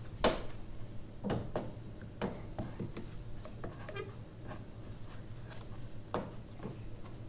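A one-handed plastic bar clamp being set and squeezed tight onto a wooden boat rail: scattered knocks and clicks, with a quick run of small ticks from the trigger about four seconds in, over a steady low hum.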